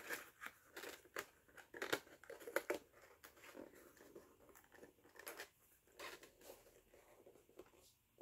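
Cardboard box with a clear plastic window being handled and turned in the hands: faint crinkling and rustling with small clicks, busiest in the first few seconds and dying away near the end.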